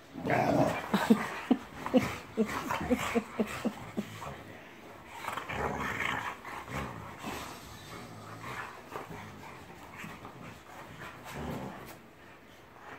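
Two boxer dogs play-fighting: growling with a quick run of short, sharp barks in the first four seconds, then more growling that grows fainter toward the end. Rough but friendly wrestling.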